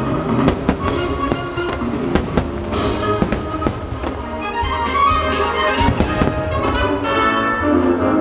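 Fireworks shells bursting in a string of sharp bangs and crackles, over music from the show's soundtrack.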